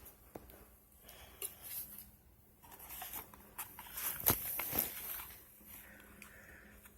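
Drone box contents and packaging being handled and unpacked: scattered light clicks, taps and rustles, busiest around the middle.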